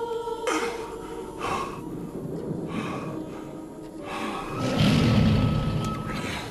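Soundtrack music under a run of heavy breaths, with a louder, deeper breath about five seconds in.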